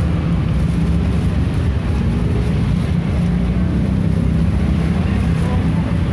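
Steady low rumble of background noise, even in level throughout, with no distinct events standing out.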